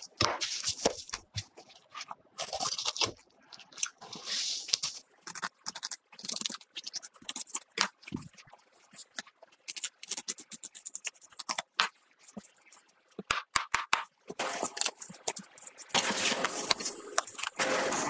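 Chef's knife filleting a whole salmon: the blade scrapes and crunches along the backbone and rib bones in short, irregular strokes, with many sharp clicks in between.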